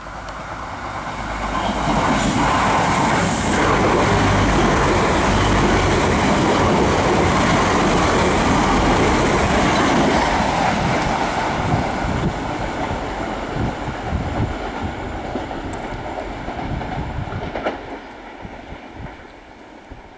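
Irish Rail 22000 class diesel multiple unit, two units coupled, passing at speed without stopping. The noise builds over the first two seconds and holds loud as the train goes by. It then tapers with scattered wheel knocks and drops away a couple of seconds before the end as the train draws off.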